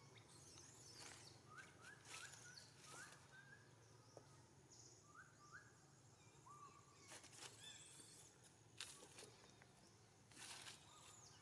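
Faint outdoor ambience: a string of short rising chirps, then a few more further on, with scattered brief rustles.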